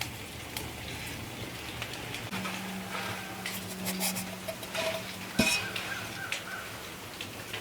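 Cookware and utensils knocking and clinking in scattered light taps, with one sharp clink about five seconds in.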